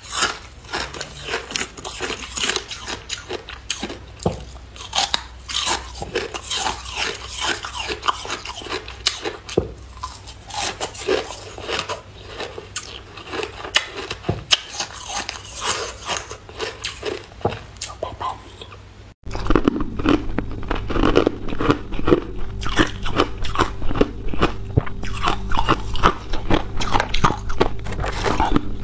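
Close-up crunching and chewing of hard clear ice: teeth snapping through thin ice sheets and grinding the pieces, a fast run of crisp crunches. About two-thirds of the way through, the sound cuts abruptly to a different recording of ice being crunched, fuller in the low end, with a faint steady hum beneath.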